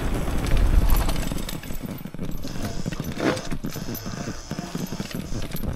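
Electric downhill mountain bike riding over a rough dirt trail: tyre rumble and wind buffeting on the handlebar microphone, with the bike rattling and clattering over bumps.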